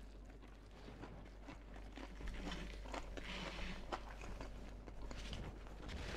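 Crunchy biting and chewing of a double-fried, buttermilk-battered chicken fillet, the crispy coating crackling in short faint ticks.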